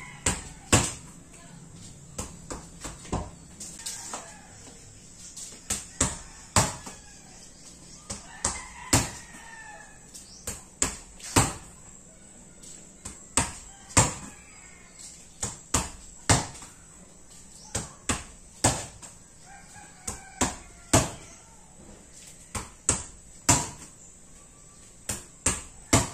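A small rubber ball bouncing on a hard floor and being hit, over and over, often in quick pairs of knocks. A rooster crows in the background a few times.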